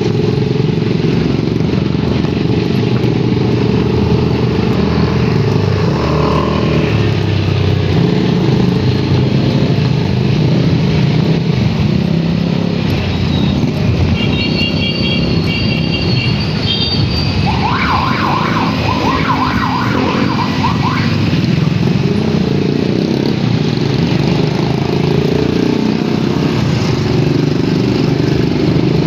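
A vehicle engine runs steadily with road noise, heard while travelling along a road. About halfway there is a short run of high beeps, followed by a few seconds of a wavering higher sound.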